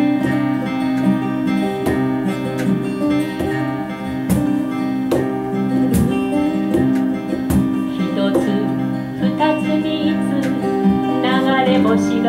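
Two acoustic guitars strummed together in a steady rhythm, playing a folk song without vocals.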